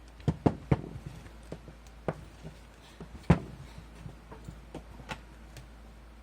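Sharp knocks and clicks of a Bosch GBH2-23REA rotary hammer's housing being handled and worked at by hand to pull it apart, three in quick succession at the start and a loud one about three seconds in.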